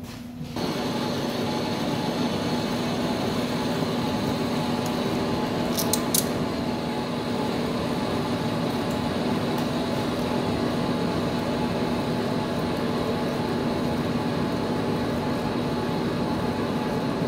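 Heavy lathe (a TM-26120G) turning a 150 mm induction-hardened chrome steel bar while a tool takes a facing cut across its end: a steady machine hum with a constant low tone. A few sharp clicks come about six seconds in.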